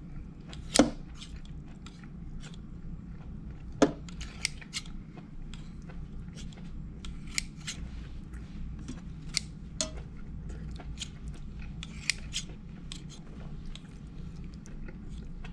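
Kitchen shears snipping raw meat in a stainless-steel pot: irregular sharp clicks as the blades close and knock against the steel. The loudest snaps come about a second in and about four seconds in. A steady low hum runs underneath.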